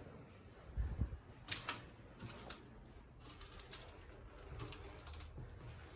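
Scattered light clicks and knocks, irregular like typing, with a low thump about a second in.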